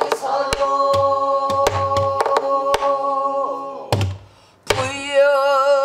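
Pansori singing to a buk barrel drum: a long held sung note, punctuated by sharp stick strokes and deep palm thumps on the drum. The note ends about four seconds in, and a new sung line with wide vibrato begins near the end.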